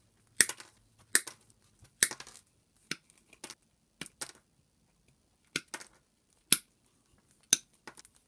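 7-inch combination pliers snipping through Cat 5 cable with stranded wire and a PVC jacket, about a dozen sharp separate snaps, roughly one a second.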